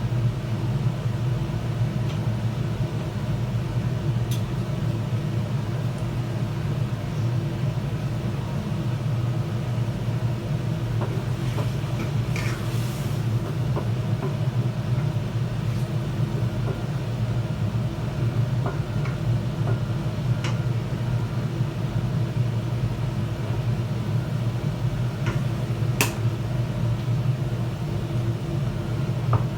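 Steady low machine hum, with a few light clicks and taps on top.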